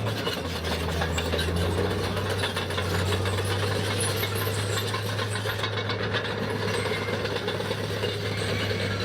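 A heavy diesel engine running steadily under load, with a dense rattling crackle over it.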